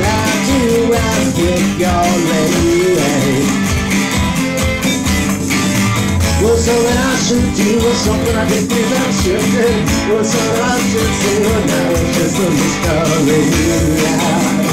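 A rock band playing live, guitar, bass and drums, with a wavering melody line over them.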